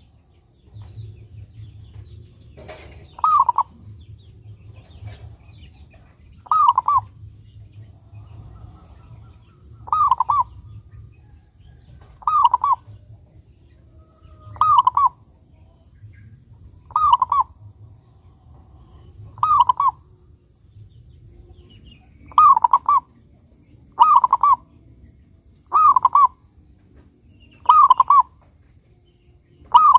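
Zebra dove (perkutut) singing: short cooing phrases repeated about every two to three seconds, a dozen in all, coming a little closer together near the end. A faint low hum lies underneath.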